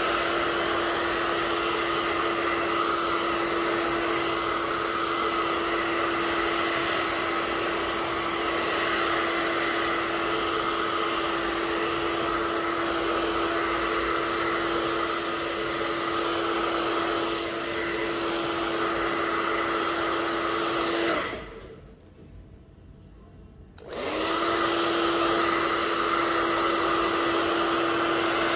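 Handheld hair dryer blowing steadily on the hair, a rush of air with a steady motor whine. It is switched off for about two and a half seconds roughly three-quarters of the way through, then switched back on.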